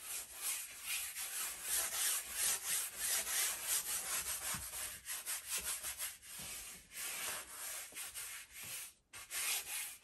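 Wide flat brush scrubbing thinner onto a stretched canvas: a swishing rub with each back-and-forth stroke, about two to three strokes a second, with a brief pause near the end. This wets the canvas before the first paint goes on.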